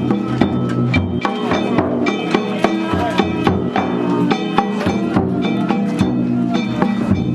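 Danjiri festival hayashi: percussion music struck in a brisk, steady rhythm, with sharp hits over ringing metallic tones.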